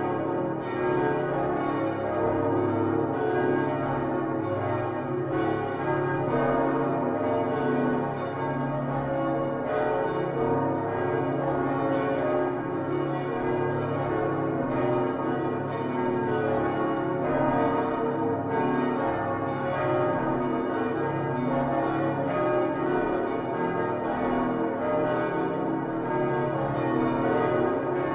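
Many large church bells of the Utrecht Dom tower, including Geert van Wou's 1505 bronze bells, swinging together on straight headstocks. Their strokes fall thick and irregular, so the tones run into one continuous, ringing mass of overlapping notes.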